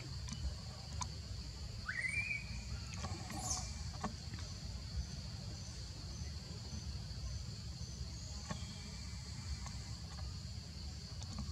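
Forest ambience: a steady high insect drone with faint quick pulsing, a low rumble of wind on the microphone, and scattered small clicks. About two seconds in, one short squeaky call slides upward and holds briefly.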